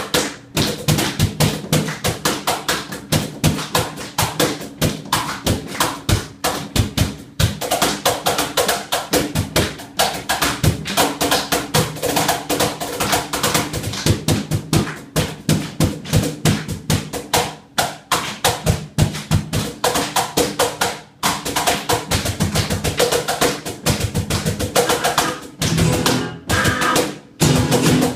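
Percussion-driven music: fast, dense drum strikes over a few sustained low notes.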